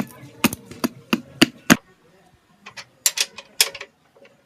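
Rapid, sharp knocks of a tool striking wood, about four a second, stopping a little before two seconds in. After a short pause comes a lighter run of clicks and taps.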